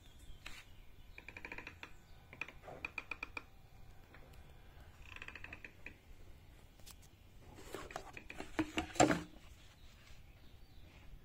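Hard plastic clatter and rustling as a drone's remote controller and gear are handled and lifted out of their box, loudest about eight to nine seconds in. Earlier come a few groups of short, high-pitched chirps.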